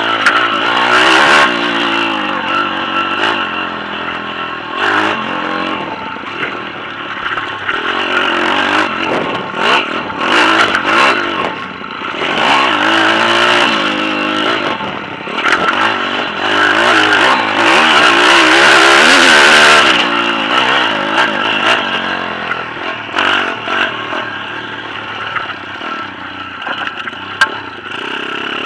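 Pit bike engine revving up and down as it is ridden hard over a dirt track, with a long rising pull about two-thirds of the way in. Bursts of rattle and noise come from the rough ground.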